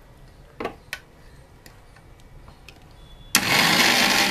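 Two light clicks, then about three seconds in an Orient electric mixer grinder switches on suddenly and runs loud and steady, grinding soaked poppy seeds and green chilli into paste in its steel jar.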